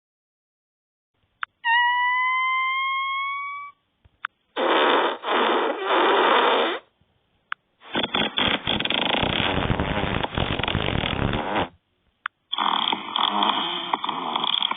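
Fart sound effects from a fart-sound phone app. A high squeaky one with a slightly rising pitch lasts about two seconds, then several longer noisy, rasping ones follow with short silences between them.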